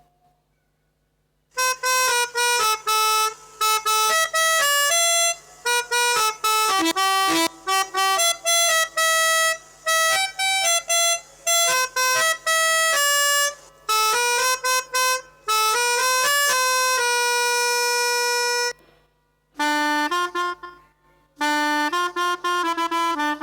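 Melodica playing a fast, horn-like telolet basuri bus-horn tune: quick runs of reedy held notes, a long held note, and two short breaks. The tune starts about a second and a half in.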